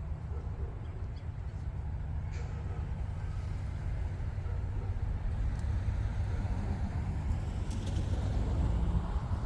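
Low, steady rumble of approaching freight-train diesel locomotives, growing slowly louder.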